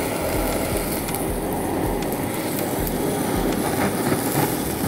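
Handheld gas blowtorch flame burning steadily, a continuous rushing noise, as it is played over the food.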